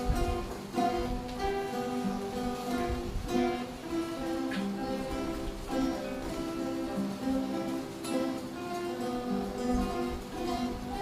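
Group of student guitarists playing a theme and variations together, several guitars sounding plucked notes in a moving melody.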